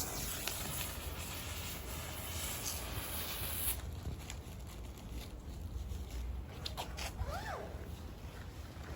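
Smoke ball firework hissing as its composition burns, then cutting off abruptly about four seconds in. A short rising-and-falling chirp sounds near the end.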